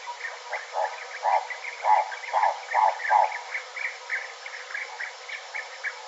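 Recorded Hartlaub's turaco calling: a run of about six rough, evenly spaced notes, roughly two a second, over the quick steady chirping of other birds in the background. The recording is played back over a video call, so it sounds thin, with no bass.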